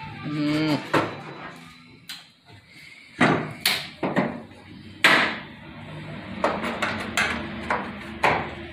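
Irregular knocks and clunks, about nine of them, as a bent steel roll-cage bar is worked into place against the inside of a 1964 Dodge wagon's body; the loudest come about three and five seconds in.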